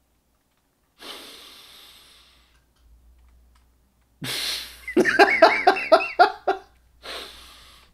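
A man laughing. About a second in comes a long breathy exhale. From about four seconds in there is a burst of laughter in quick, rhythmic pulses, ending in a short breath.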